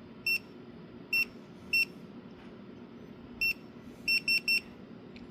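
eufy C34 smart lock keypad beeping: seven short, high electronic beeps, four spaced apart, then three in quick succession near the end.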